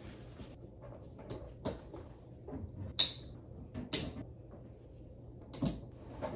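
Handling noises from folding together an Oru Inlet kayak's plastic hull and fitting its parts: scattered light knocks and rustles, with two sharp clicks about three and four seconds in.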